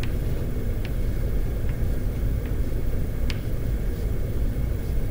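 Steady low room rumble, with a few faint, sharp taps of chalk on a blackboard as a small cube is drawn.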